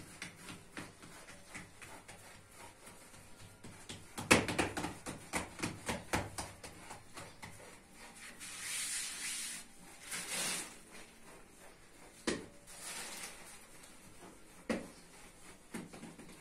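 Hands working a round of flatbread dough over a round baker's cushion: a run of quick soft pats, then rubbing and swishing of dough against the cushion, and a few single dull thumps.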